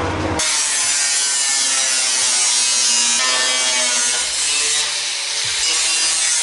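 Handheld abrasive power tool grinding on sheet metal: a loud, steady hissing grind with a faint whine that starts abruptly about half a second in.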